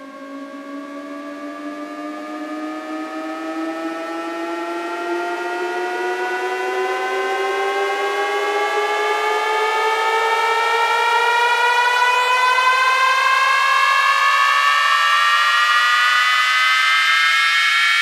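A siren wail in a DJ sound-check track, climbing slowly and steadily in pitch and getting louder throughout, with several tones rising together.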